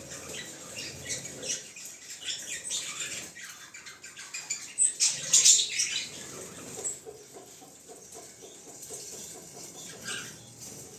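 African lovebirds chirping in quick, high-pitched squeaky calls, with a louder flurry of shrill calls about halfway through.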